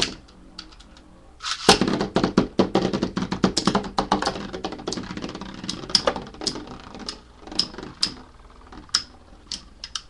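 Two metal Beyblades, Capricorn and Storm Pegasus 150RF, launched into a plastic stadium about a second and a half in, then spinning and colliding in a fast run of sharp metallic clicks and knocks that thins out to occasional clicks as the tops slow down. A single sharp knock comes at the very start.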